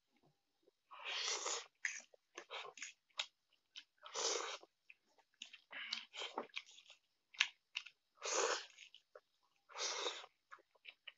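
A person slurping and chewing instant noodles up close: four drawn-out slurps, with wet smacking clicks of chewing between them.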